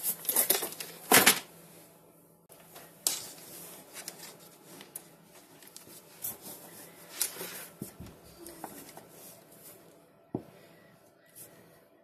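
Hands handling insulated hookup wire, pulling and feeding it along a wooden baseboard frame: rustling and scraping with scattered light clicks, the loudest rustle about a second in.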